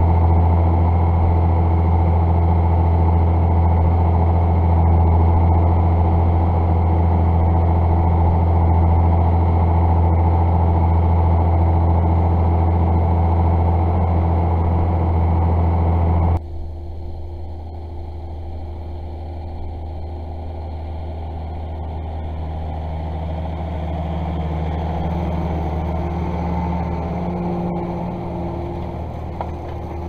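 John Deere 6190R tractor's six-cylinder diesel running steadily under load while ploughing, heard loud and close from the bonnet. About halfway through the sound cuts abruptly to the same tractor heard from the ground, quieter, swelling as it comes past pulling the plough and then fading.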